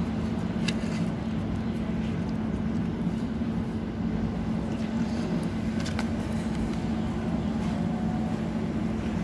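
A steady low mechanical hum runs throughout, with a few short sharp clicks and smacks as a cat licks a squeeze-tube treat from its packet.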